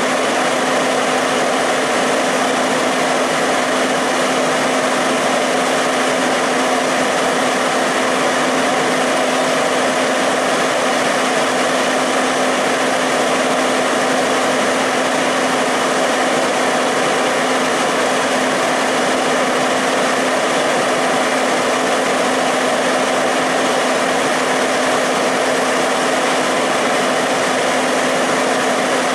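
Fire apparatus engine running steadily at a constant speed: a loud, unchanging mechanical drone with a steady low hum.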